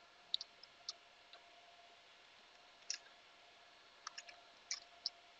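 Faint, irregular clicks from a computer keyboard and mouse, some single and some in quick clusters, over a faint steady hum.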